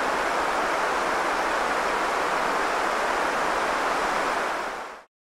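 A steady, even rushing noise like static or distant surf, fading out quickly near the end. It is a produced space-sound track of the kind offered as the 'sound' of a moon.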